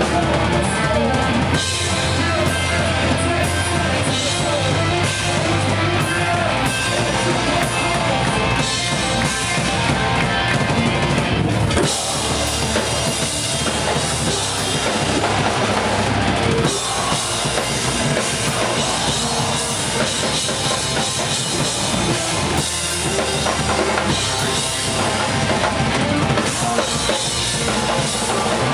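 Metalcore band playing live with distorted guitars and a drum kit. The song is loud throughout and changes section sharply twice, about 12 and 17 seconds in.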